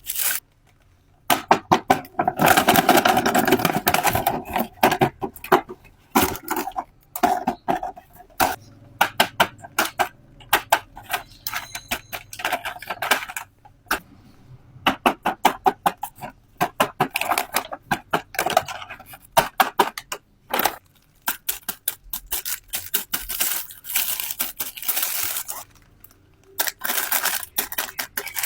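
Toy packaging being handled and opened: rustling and tearing with many sharp clicks and taps. There is a longer burst of tearing a couple of seconds in.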